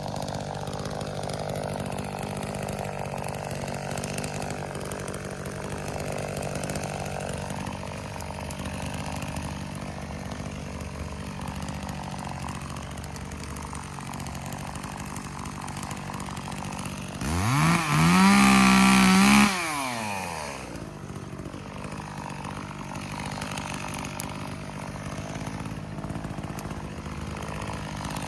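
Chainsaw idling steadily, then revved to full throttle once for about two seconds partway through before dropping back to idle.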